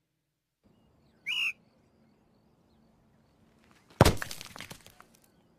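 A short whistle-like call rising in pitch about a second in, then a single loud thud about four seconds in that dies away over a second, with faint bird-like chirps in the background.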